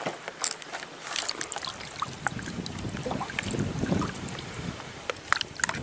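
River water lapping and splashing right at the microphone, with many small clicks and ticks of water and wind on the microphone. A low rumble of moving water swells about three seconds in and fades a second and a half later.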